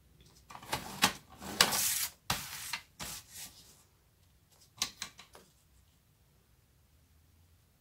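Sheet of cardstock being handled and slid into place on a paper trimmer: paper rustling and rubbing against the trimmer's rail and base, with sharp clicks. It is busiest in the first three and a half seconds, with a short group of clicks about five seconds in.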